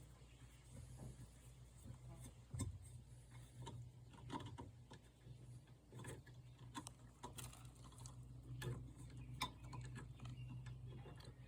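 Scattered faint clicks and taps of hand work on a small tire and wheel rim, over a steady low hum.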